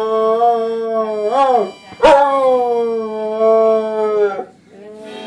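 Labrador–vizsla mix dog howling: a long howl wavers and breaks off about a second and a half in, then a second long howl starts at about two seconds, high at first and slowly falling in pitch, and stops shortly before the end.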